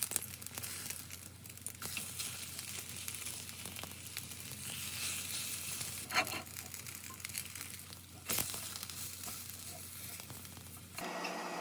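Food sizzling in a frying pan, a steady hiss with scattered crackles and a couple of sharp knocks from utensils on the pan. Near the end it cuts abruptly to a steady appliance-like hum.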